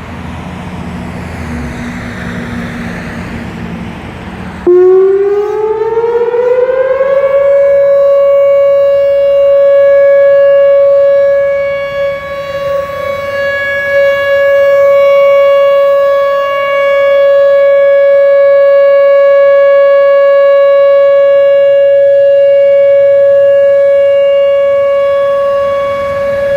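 Whelen WPS-4004 electronic outdoor warning siren sounding a steady alert tone. It starts suddenly about five seconds in, climbs in pitch over a couple of seconds, then holds one steady tone, its loudness swelling and dipping slightly. It begins to fall in pitch at the very end.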